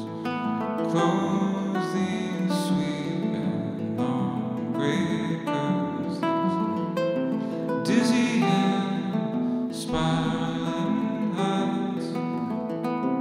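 Solo acoustic guitar playing: many plucked notes ringing over one another, steady throughout.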